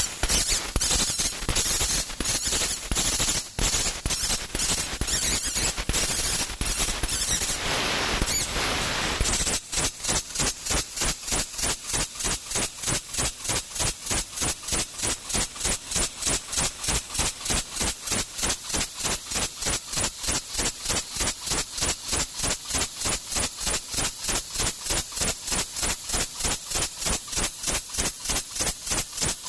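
6000 W fiber laser cutting machine cutting steel sheet: a loud hiss broken by irregular sharp cracks, which about a third of the way in turns into a steady pulsing hiss, about four pulses a second, that runs on.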